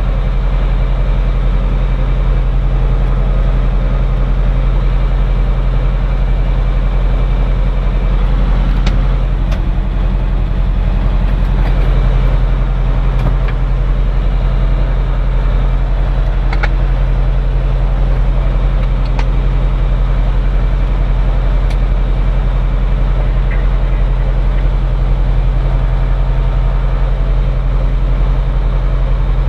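Cirrus SR20's four-cylinder Lycoming piston engine and propeller running steadily, heard from inside the cockpit.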